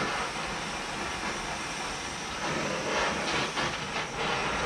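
Oxy-fuel cutting torch flame hissing steadily as it heats a steel pipe for bending, with a few brief surges about three seconds in.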